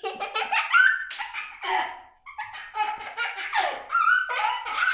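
People laughing in repeated bursts of voiced laughter.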